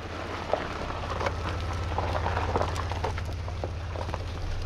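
SUV driving slowly off the bank onto lake ice: a low, steady engine rumble with scattered crackles and crunches under its tyres, busiest about two to three seconds in.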